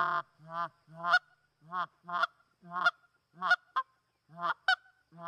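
Canada goose call blown by mouth: a run of short honks and clucks, about two a second, some in quick pairs, each breaking from a low note up to a high one. This is the territorial moaning (bougonnage) combined with clucks, a call meant to slow geese coming in toward the decoys.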